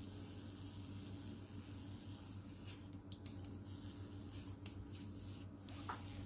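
Faint steady hiss of an airbrush spraying paint, broken by a few brief pauses, over a steady low hum.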